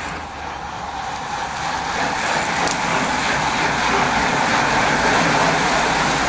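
A group of road-racing bicycles passing close by: the hiss and whir of many tyres and drivetrains, growing louder as the bunch draws level.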